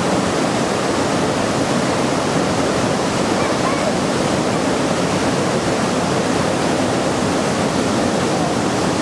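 Waterfall at Lower Bassi Falls: water falling and splashing in a loud, steady rush.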